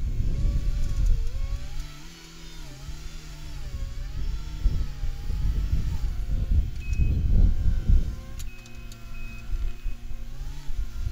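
Caterpillar 259D3 compact track loader working at a distance, its diesel engine rising and falling in pitch as the load changes, with low rumbling gusts over it.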